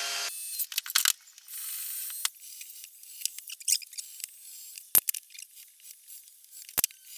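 A cordless drill's whine cuts off just after the start. Then come small clicks, taps and rattles of a drill and bits being handled at a workbench, with two sharp clicks near the end.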